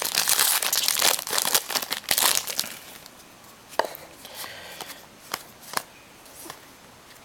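Foil trading-card pack wrapper crinkling as it is torn open and handled, loudest for the first couple of seconds, then a few light clicks and taps of cards being handled.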